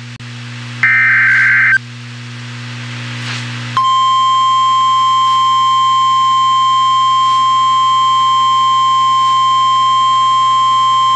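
NOAA Weather Radio alert. The last burst of the SAME digital header, a short warbling screech, comes about a second in. Then the steady warning alarm tone comes on just under four seconds in and holds, over a low hum.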